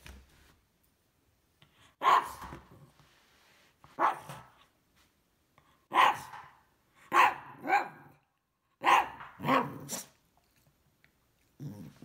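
Cavalier King Charles Spaniel barking at a vacuum cleaner: about eight short barks, single ones spaced out at first, then in quick pairs and threes.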